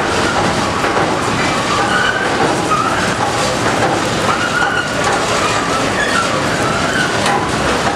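Olive oil mill machinery running with a steady, loud mechanical din. Short squeals that waver in pitch come and go about every second.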